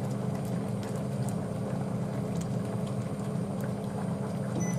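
A saucepan of curry udon broth simmering: a steady low rumble with faint scattered ticks of bubbling.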